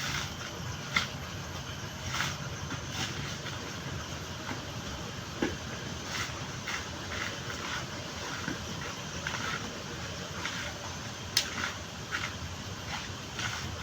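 A coconut being husked by hand: irregular knocks, clicks and scraping as the fibrous husk is worked and pried off, with a sharp click about eleven seconds in.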